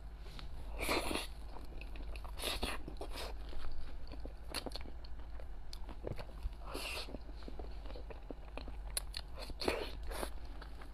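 Close-miked eating sounds: a metal spoon scooping soft mango cream dessert from a plastic cup, and the wet mouth sounds of chewing and swallowing it, heard as scattered short clicks and soft noisy bursts.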